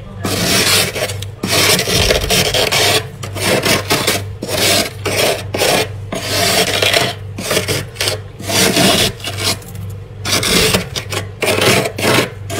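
A spoon scraping built-up frost off a freezer wall, in repeated scraping strokes with short breaks between them.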